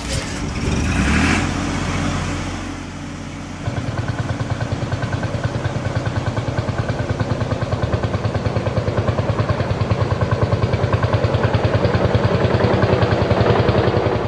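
Cartoon vehicle engine sound effect. A brief whoosh comes about a second in, then from about four seconds in an engine runs with a steady, rapid chugging.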